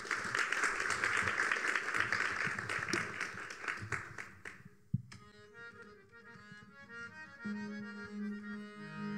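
Audience clapping for about five seconds, which stops abruptly. Then a harmonium starts playing held reed chords, with a low steady drone note joining near the end.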